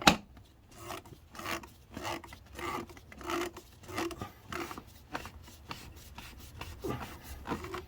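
Oil filter housing cap of a BMW 520d (F10) being screwed down by hand onto its housing: a sharp knock at the start, then a run of short scrapes, about one every two-thirds of a second, as the cap is turned in repeated hand strokes.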